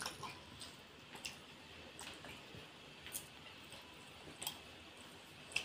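Soft, wet sounds of eating by hand: fingers working rice and egg curry in a steel plate, then mouth and chewing sounds, with about half a dozen light clicks scattered through.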